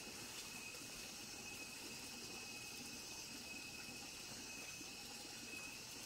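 Night insect chorus, a thin steady high trill with a fainter shimmer above it, over a soft even rushing hiss.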